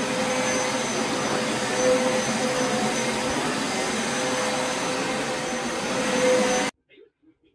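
Upright carpet cleaner running over carpet: a steady motor whine with a constant pitched hum. It cuts off abruptly near the end.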